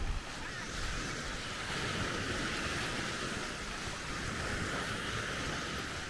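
Sea waves washing onto a beach: a steady hiss of surf, with a low wind rumble on the microphone.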